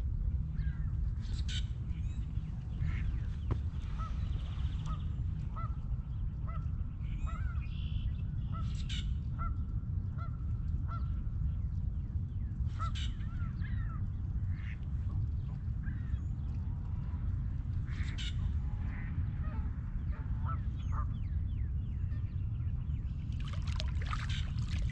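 Birds calling now and then over a steady low rumble, then water splashing near the end as a small carp is let go by hand.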